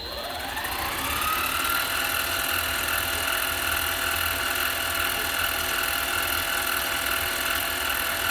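Harbor Freight mini lathe motor spinning up with a rising whine over the first second and a half, then running at steady speed with a constant whine and hum.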